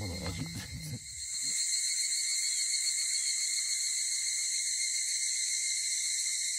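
Brief voices at the start, then a steady high-pitched chorus of chirring insects that begins about a second in and lasts to the end.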